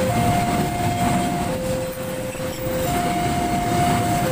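Long container freight train rolling past, its wagons rumbling steadily. Over it a level-crossing warning alarm sounds two alternating tones, high then low, each held about a second and a half.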